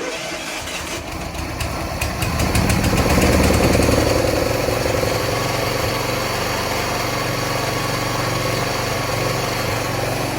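Wheel Horse 212-5 garden tractor engine starting at once after a month unused, picking up speed about two seconds in, then running steadily and lively. It fires readily despite a known fuel delivery issue.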